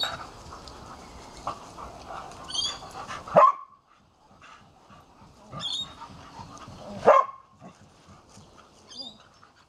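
Dogs play-fighting, with two loud, sharp barks about three and a half seconds apart, the first a third of the way in and the second two-thirds in.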